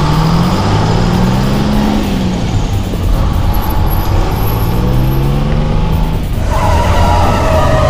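Delivery-truck engine accelerating away, its pitch climbing twice as it goes through a gear change.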